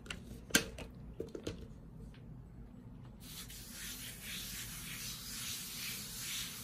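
Hands rubbing and spreading flour across a silicone baking mat: a soft, rhythmic swishing that starts about three seconds in. Before it, a sharp click and a few light knocks.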